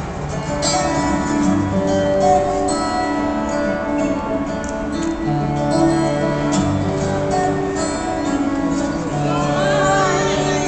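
Background music with long held notes, with a wavering high melody line near the end.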